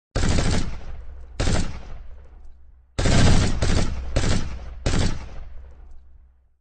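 Gunfire sound effect: about five or six loud shots or short bursts, each starting suddenly and dying away in an echoing tail. The loudest come about three seconds in, in quick succession.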